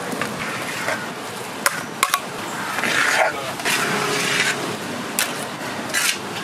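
Indistinct voices over a steady background noise, with a few sharp clicks or knocks.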